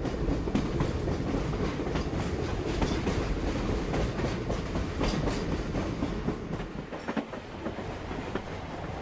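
Passenger train running on the rails: a dense rumble and clatter of wheels over the track, with many sharp clicks, easing slightly after about seven seconds.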